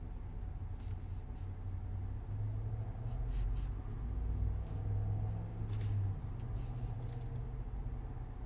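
A 2021 Land Rover Defender 90's 3.0-litre straight-six engine running, a steady low sound that swells a little between about three and six seconds in.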